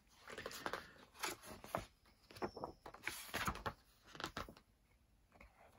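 Paper and card being handled: faint irregular rustles and soft taps as pages, sleeves and inserts are turned over and moved.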